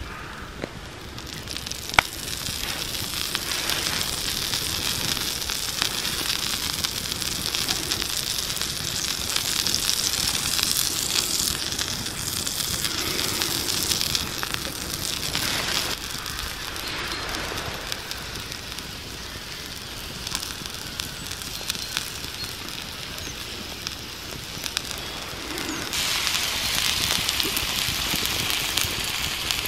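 Wood fire crackling under a hot cooking slate, with a steady sizzling hiss from the oiled slate. The hiss swells about a second and a half in, a sharp crack comes about two seconds in, and it grows louder again near the end.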